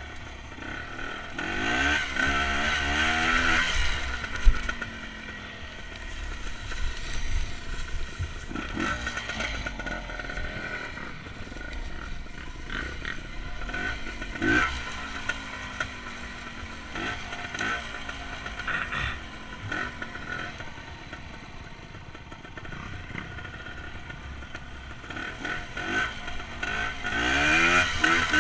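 Dirt bike engine being ridden, its revs rising and falling again and again with the throttle, with scraping and clattering as the bike runs over rough, leaf-covered ground and a sharp knock about four and a half seconds in.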